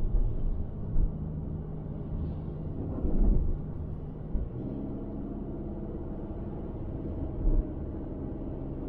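Car cabin sound while driving on a snowy street: a steady engine hum over low road rumble. A few short knocks come through, at about one, three and seven seconds in.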